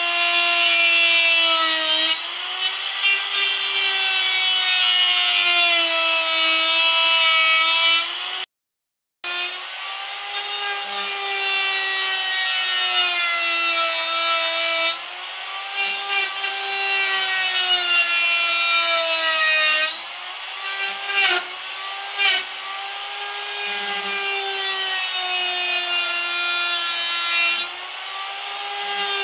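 Handheld electric rotary tool running at high speed, its burr grinding and carving wood. A steady, high motor whine dips in pitch and recovers every few seconds as the burr bites into the wood and is eased off. The sound cuts out briefly about a third of the way in.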